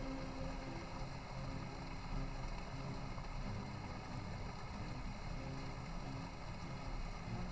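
Steady rushing noise of a stream running.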